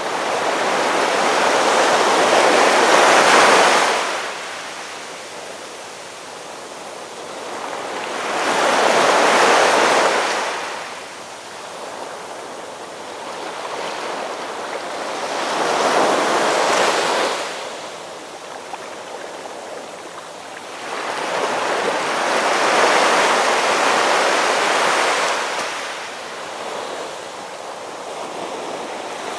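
Ocean waves breaking and washing on a shore. Four surges swell up and die away, about one every six to seven seconds.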